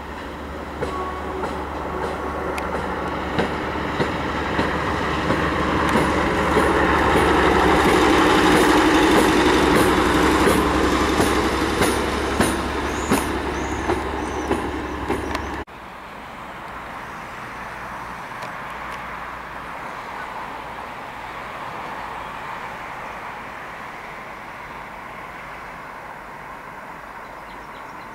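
WM-15A motorised rail trolley passing close by: its running noise swells to a peak about eight to ten seconds in and eases off, with its wheels clicking over rail joints. The sound cuts off abruptly a little past halfway, giving way to a quieter steady rumble.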